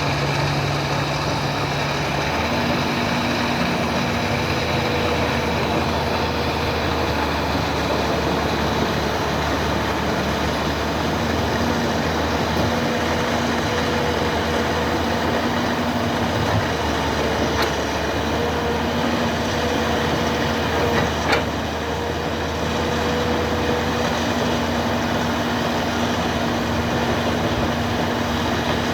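Excavator's diesel engine running steadily, with a hum whose pitch steps up about two seconds in. A single sharp click a little past twenty seconds.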